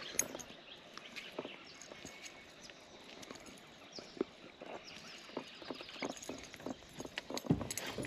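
Scattered small clicks and light knocks of fishing tackle being handled while a spinnerbait lure is changed in an aluminium boat, with a dull low thump near the end.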